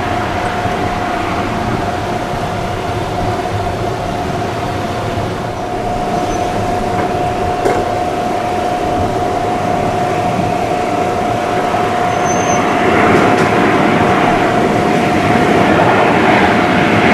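Airliner engines heard from near the runway: a steady whine over a continuous rumble, growing louder in the last few seconds as the aircraft draws closer.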